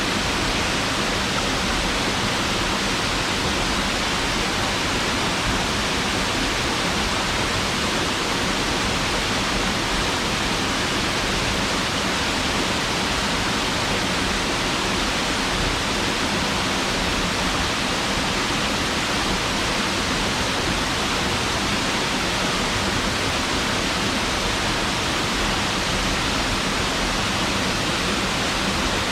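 Waterfall: water falling steadily into a plunge pool, a constant even rush with no change.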